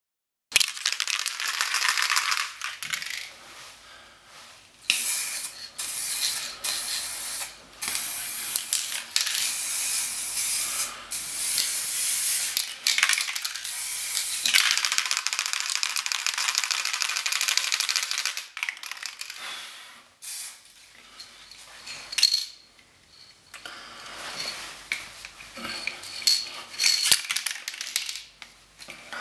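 Hissing spray in several long bursts of a few seconds each, with short breaks between. It is followed by quieter hissing and a few clicks near the end.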